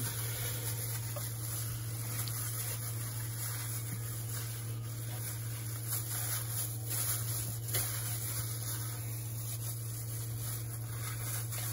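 Faint squishing and plastic rustling as minced beef is kneaded by hand in a disposable plastic glove, with a few soft clicks, over a steady low hum.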